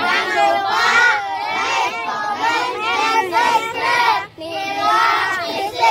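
A group of boys chanting together in many overlapping voices, breaking off briefly about four seconds in and then starting again.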